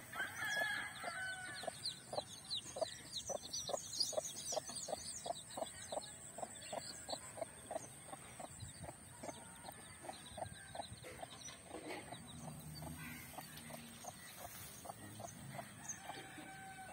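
Mother hen clucking steadily to her chicks, a run of short low clucks about three a second, with the chicks peeping high and thin, most busily in the first half.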